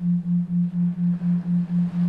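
Low, steady electronic tone pulsing evenly about four times a second, a 3.9 Hz pulsed sleep tone, over a faint hiss.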